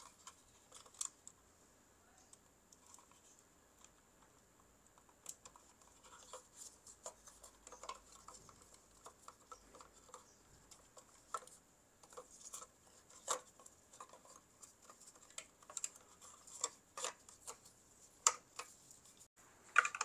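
Faint scattered clicks and taps, closer together and louder in the second half, from the plastic printhead and flat ribbon cables of an Epson L805 printer being handled and fitted into the print carriage.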